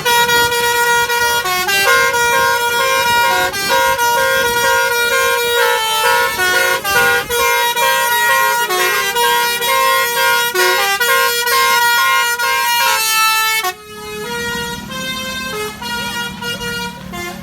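Basuri musical air horn on a vehicle playing a fast melody of stepped notes. About fourteen seconds in it drops off sharply, leaving fainter horn notes over a low engine rumble.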